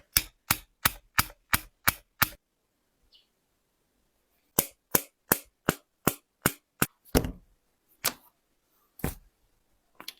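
Sharp clicks in two runs of seven, about three a second, with a pause of about two seconds between the runs. They are followed by four heavier knocks about a second apart.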